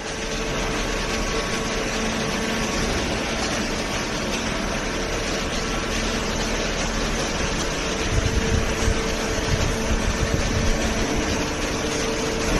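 Hydraulic baler running: a steady machine hum from its hydraulic pump, with heavier low rumbling from about eight to eleven seconds in.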